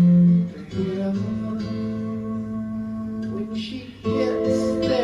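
A recorded song with acoustic guitar and singing, played from CD through Coherent Audio Model Twelve Neo Signature loudspeakers. A long held note breaks off near the start, the guitar plays on more quietly, and the song swells again about four seconds in.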